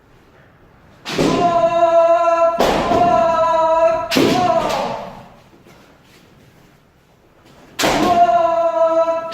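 Kendo kiai: long, held shouts from practitioners, each beginning with a sharp stamp or bamboo shinai strike as a wrist (kote) strike lands. Three come in quick succession about a second in, and another near the end.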